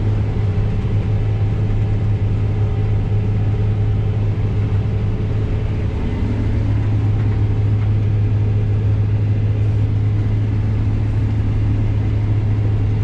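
Combine harvester running steadily under load while harvesting wheat: a loud, even, low machine drone.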